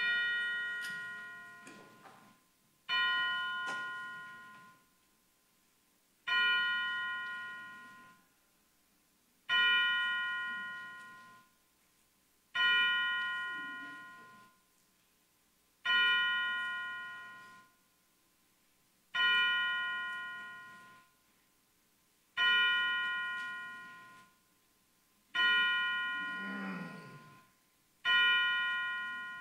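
A bell struck slowly and evenly, ten strokes about three seconds apart at the same pitch, each ringing out and fading before the next.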